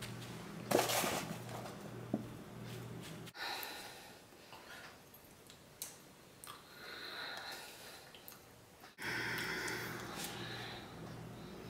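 Rustling and light scraping of potting soil being handled and dropped into a glass terrarium container, with a louder gritty burst about a second in. A low steady hum runs under the first and last parts and cuts out abruptly in the middle.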